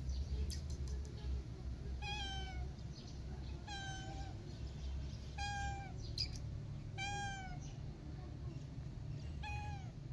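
Orange-and-white cat meowing five times, short calls about a second and a half apart, each dipping slightly in pitch at the end.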